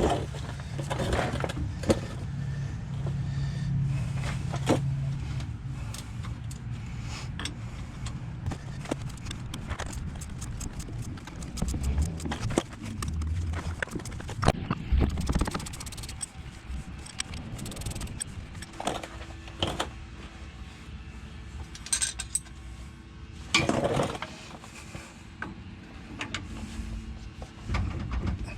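Scattered metallic clicks, clinks and knocks of hand tools and bolts as the rear universal joint is unbolted from the drive shaft of a 1993 Ford F150, with a few heavier knocks along the way.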